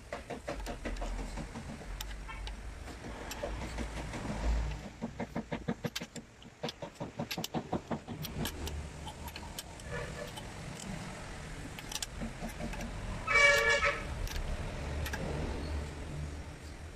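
Hand ratchet clicking in quick runs while camshaft bearing-cap bolts are turned on a DOHC cylinder head, with scattered metal ticks from the tools. Near the end a vehicle horn honks once, briefly, and is the loudest sound.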